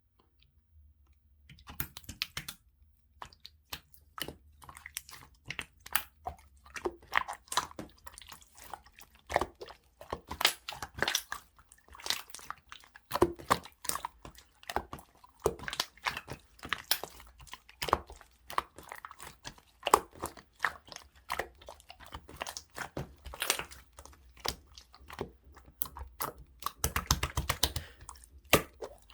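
Clear jelly-textured slime being squeezed and worked by hand: a dense, irregular run of wet clicks and small pops that begins about a second and a half in.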